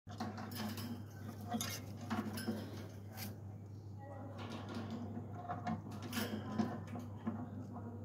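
Irregular sharp clicks and knocks of an Alexandrine parakeet's beak biting at a piece of fruit held in the fingers, over a steady low hum.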